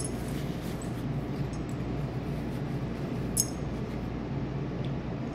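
Steady low room hum with a few faint ticks, and one light metallic clink about three and a half seconds in.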